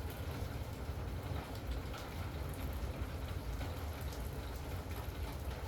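Steady rain with a deep low rumble underneath and scattered drops ticking on top.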